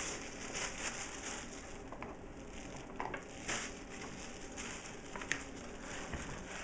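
Plastic packaging crinkling and rustling as a soft nylon carrying case is handled and opened and items inside are rummaged through, with a few light clicks and knocks.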